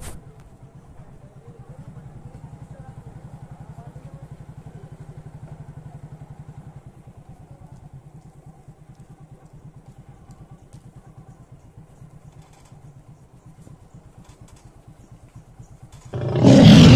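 Small engine of the vehicle carrying the camera, running steadily as it rides along a street, with a fine even pulsing hum that eases off after the first few seconds. Near the end a sudden loud rush of noise covers everything.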